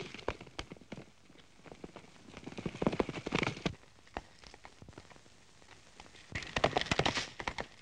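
Horses galloping: quick, dense hoofbeats that swell louder about three seconds in and again near the end, as riders pass close.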